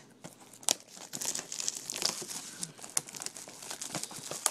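Crinkling and rustling of a trading-card box's plastic wrapping as it is handled, with a sharp click about a second in.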